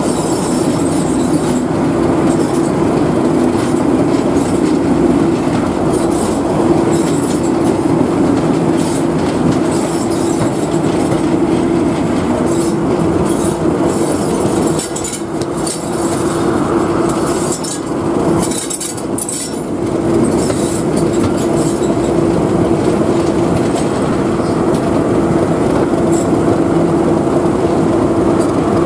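Class 37 diesel locomotive's English Electric V12 engine running with a steady drone, heard from the open cab window over the rush of wheels on rail and passing air. The loudness dips briefly about halfway through.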